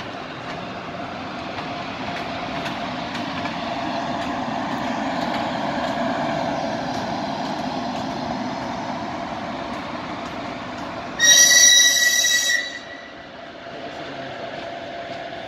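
ChS4 electric locomotive rolling slowly past with a steady rumble and a thin steady whine. About 11 seconds in it sounds its typhon horn in one loud, high-pitched blast of about a second and a half.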